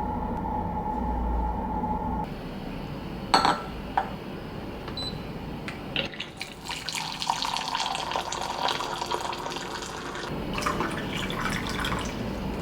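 A steady hum with a low rumble that stops about two seconds in, then two sharp clicks, then water running and splashing from about six seconds in.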